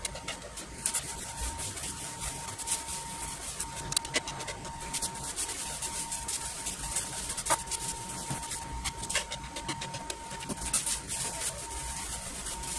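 Wide paintbrush swept back and forth through a thin coat of gesso on a large flat painting surface, making a run of short, scratchy brushing strokes. A faint steady tone sounds underneath.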